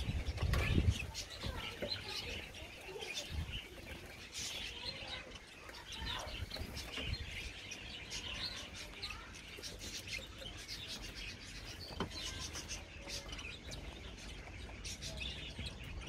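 Small aviary birds (finches and parakeets) chirping and twittering in a steady stream of quick, short, high calls. Low thumps in the first second, and a single sharp click about twelve seconds in.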